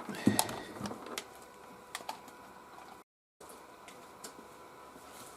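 Scattered small knocks, clicks and rustles of objects being handled on a workbench, busiest in the first second or so, with the sound dropping out completely for a moment about three seconds in.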